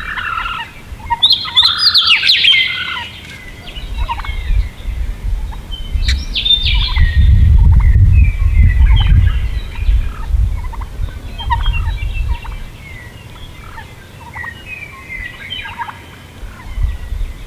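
Wild turkey gobblers gobbling in repeated rattling bursts, with a low rumble loudest in the middle.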